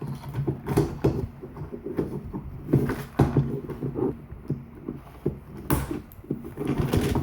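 Irregular clicks, knocks and rustling of a plastic toy and its packaging being pulled apart and handled.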